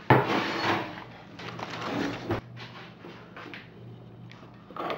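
Handling noises as a baked salmon is lifted from a glass bowl onto a plate with two wooden spatulas: a loud rustle and knock at the start, then scattered light knocks and scrapes of wood on glass and china.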